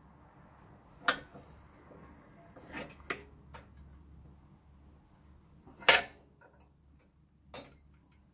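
About six sharp metallic clanks and clicks spread over several seconds, the loudest about six seconds in, as a bench vise's sliding handle is worked to press steel bushing sleeves into a VW T25 upper control arm.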